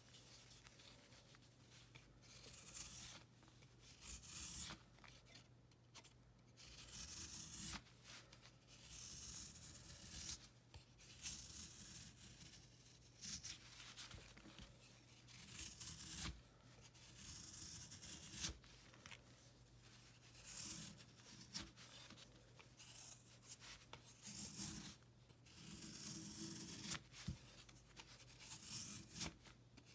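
Snap-off utility knife blade scraping and shaving curls off a dried block of baking soda, chalk and calcium carbonate, in a long run of short strokes at an uneven pace.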